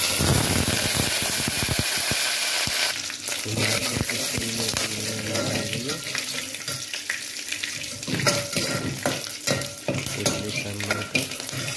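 Hot oil sizzling as red chilli, green chilli, curry leaves and mustard seeds hit it for a tempering, with spluttering crackles and a metal spoon stirring in an aluminium pot. The sizzle starts all at once and eases slightly after a few seconds.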